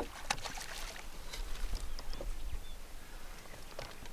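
Scattered light knocks and clicks of a landing net and fishing gear being handled on a bass boat's deck, a sharper knock at the very start, over a low rumble of wind on the microphone.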